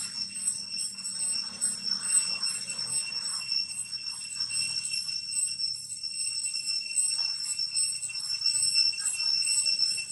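Insects buzzing steadily in several high-pitched tones, the highest one pulsing rapidly, over a faint low hum that fades out about halfway through.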